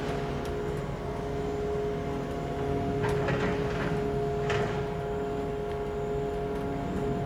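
Moored car ferry Ferry Kumamoto's machinery running with a steady low hum carrying two held tones. A few short knocks or clatters come about three to four and a half seconds in.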